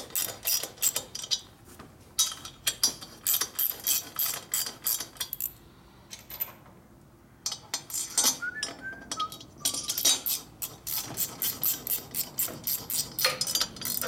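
Hand ratchet clicking in quick runs of about six clicks a second as cylinder head bolts are run down, with a pause of about two seconds near the middle.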